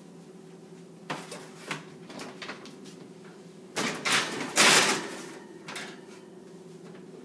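A metal baking sheet clattering and scraping against the wire oven rack as it is slid into the oven, loudest about four to five seconds in, after a couple of small knocks.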